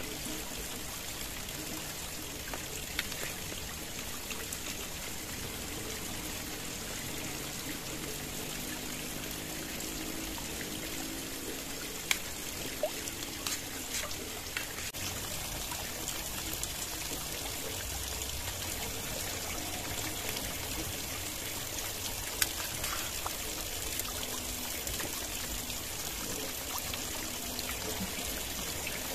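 Steady flow of a trickling stream, with a few sharp clinks of a metal spoon and fork against a pan.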